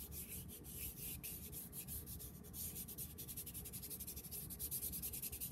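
Fingers rubbing chalk pastel into paper in small circles to blend the colour: a faint, scratchy rustle of quick repeated strokes.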